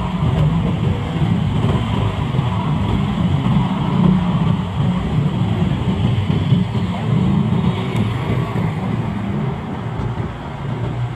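City motorcycle and scooter traffic heard from among the riders: a steady rumble of small engines, with tyres hissing on a wet road.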